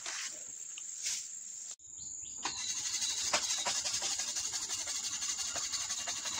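Insects chirring in a steady high-pitched drone, with a few light ticks over it. The sound drops out for an instant about two seconds in.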